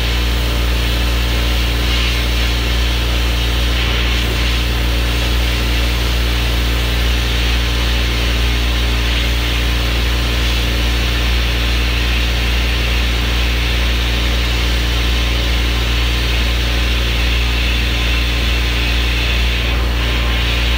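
Pressure-pot sandblaster nozzle blasting a motorcycle rim inside a blast cabinet: a loud, steady hiss of air and grit striking the metal, over a deep steady hum.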